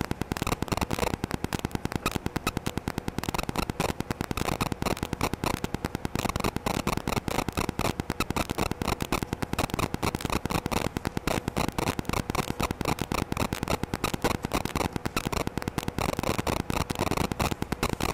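Continuous rapid crackling buzz of electrical interference on an external microphone, caused by a GoPro camera running with its wifi on.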